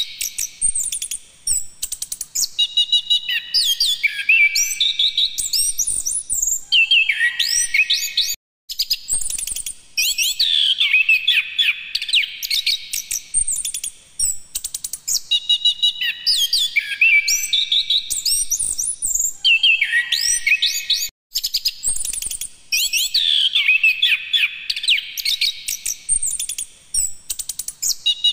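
Chestnut-capped thrush (anis kembang) singing continuously: fast, varied phrases of high whistled notes, rising and falling glides and chattering trills. The song breaks off for a split second twice.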